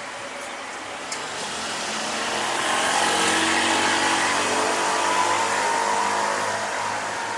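A vehicle passing through a railway level crossing, its noise swelling to a peak mid-way and easing off near the end.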